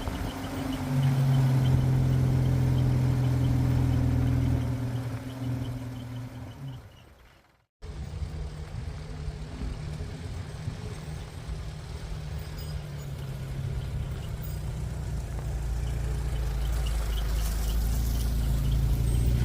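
A vehicle engine running steadily. It fades out and cuts off abruptly just before eight seconds in, then runs again and grows louder toward the end.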